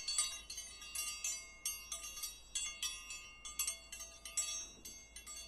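High, tinkling chimes, struck lightly in a quick, uneven run, each note ringing on over the next.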